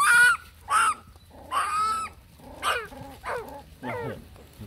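Puppies whining and yelping: about six short, high-pitched cries, the loudest right at the start.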